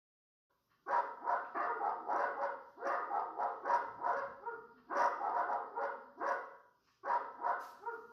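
A dog barking, played back through a small desktop speaker. The barks come rapidly, several a second, in runs broken by short pauses.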